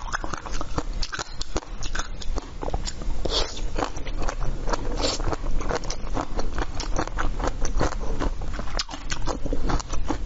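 Close-miked biting and chewing of a frozen ice treat: a dense run of crisp cracks and crunches as the ice breaks between the teeth.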